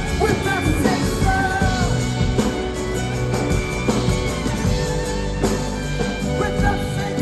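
Live rock band playing a passage without lyrics: sustained bass notes and drum hits under a sliding, wavering melody line.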